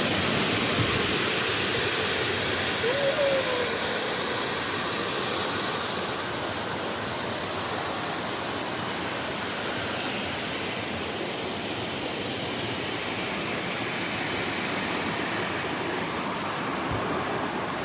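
Waterfall seen from close by: a steady rush of falling water, easing slightly in its upper hiss after a few seconds.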